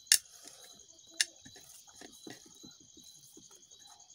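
Insects chirping steadily in the background, with two sharp clicks about a second apart near the start. Soft small ticks and smacks of someone eating rice with her fingers from a plate.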